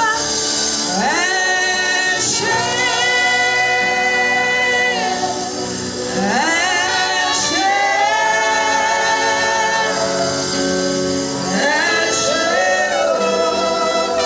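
Gospel worship music: sung phrases held on long notes, with sustained instrumental accompaniment.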